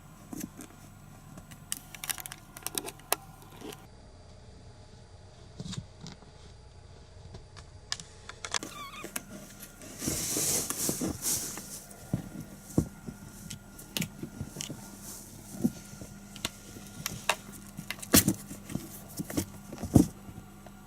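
Kittens playing: scattered light taps, scrabbles and knocks, with a rustling scuffle about ten seconds in and a couple of louder thumps near the end.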